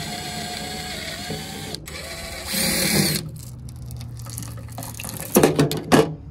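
Cordless drill whining as it runs screws on a metal switch panel, with a louder spell about two and a half seconds in. Near the end come several sharp metallic clicks.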